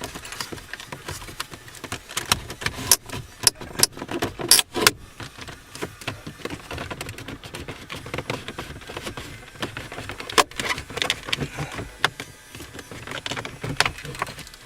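Hard plastic clicking, knocking and scraping as the instrument cluster of a third-generation Ford Focus is worked loose and pulled out of its dashboard housing. The sharpest clicks come in a cluster about three to five seconds in, with another about ten seconds in.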